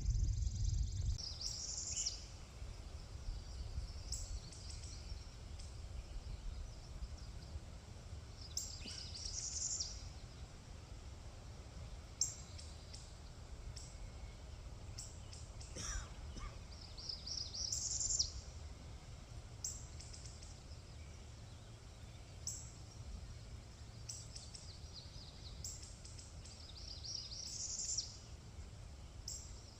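Outdoor ambience: a steady low rumble like wind on the microphone, with short high chirps or rustles every second or two.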